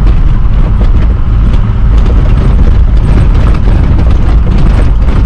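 Four-wheel-drive truck driving over a rough sandy dirt track, heard from inside the cab: a loud, steady low rumble of engine and tyres with frequent short knocks and rattles from the jolting ride.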